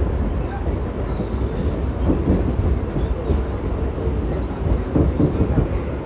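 Mumbai suburban local electric train running along the track, heard from the open doorway of a moving coach: a steady low rumble of wheels on rail.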